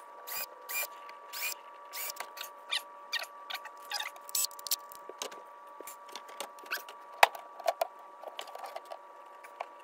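Irregular small clicks, taps and knocks of tools and hinge hardware being handled while a plastic cabinet door is fitted, the sharpest knock about seven seconds in. A faint steady hum runs underneath.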